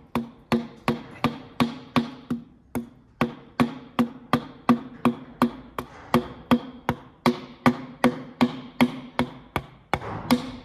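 Number one piston of a four-cylinder 165 tractor engine being tapped down into its cylinder bore: repeated sharp taps, about three a second, each with a short ring. There is a brief pause about three seconds in.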